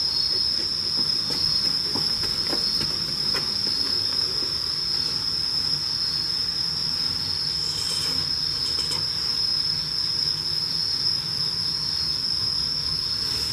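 Night-singing insects chirring in one steady, unbroken high-pitched trill, with a few light taps and a brief rustle over it.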